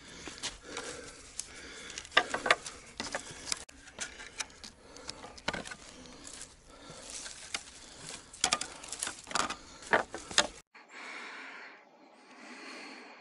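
Footsteps crunching and crackling through dry leaves, twigs and crusted snow on a steep forest slope, irregular and close. About ten seconds in the sound cuts to a series of breathy puffs, each about a second long.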